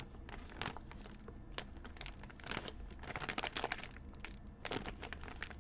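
Clear plastic zip-lock bag of foil origami paper crinkling as it is pulled open and handled, a run of irregular sharp crackles that is busiest about halfway through.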